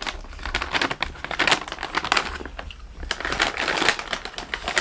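Crunchy fried namkeen snacks being chewed close to the microphone: dense, irregular crunches and crackles.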